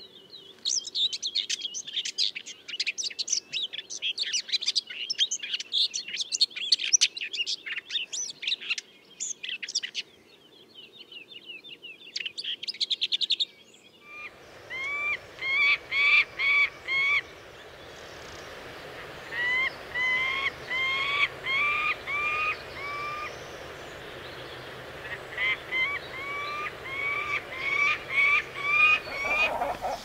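Two different wild birds in turn. First, a small songbird sings a fast, high twittering song, with a short lull about ten seconds in. About fourteen seconds in a new recording begins: a bird of prey gives short ringing calls in quick series, over a steady outdoor hiss.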